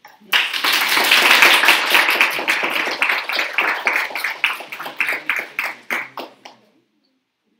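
Audience applauding; the clapping thins out to a few scattered claps and dies away near the end.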